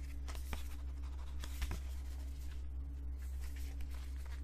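Faint rustles and a few light clicks from a Blu-ray collector's set's cardboard and paper packaging being handled, over a steady low hum.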